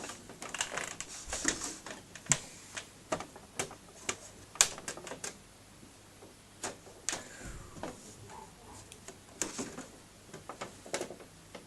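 Irregular clicks, taps and knocks of handling as a desktop computer tower is moved and turned, with a brief faint scrape about seven seconds in.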